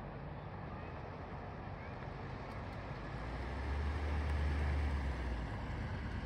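Distant, steady jet rumble of a McDonnell Douglas MD-11F trijet freighter passing high overhead at cruise altitude. A deeper low rumble swells from about three and a half to five and a half seconds in.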